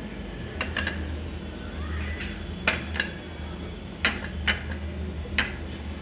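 Onion pieces dropped by hand into a stainless steel mixer-grinder jar, knocking against the metal in a series of light clinks and knocks, about seven of them.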